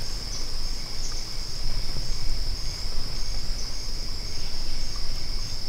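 Steady chorus of night insects, a continuous high trill with no breaks, over a low rumble.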